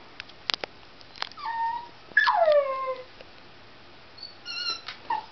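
West Highland white terrier whining in high-pitched whistly cries, worked up at a cat it sees outside the window: three or four whines, the loudest a long one sliding down in pitch about two seconds in. A few sharp clicks come just before the first whine.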